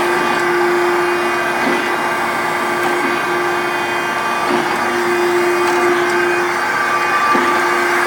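Okamoto 16 x 32 surface grinder running under power: a steady machine hum with a constant whine.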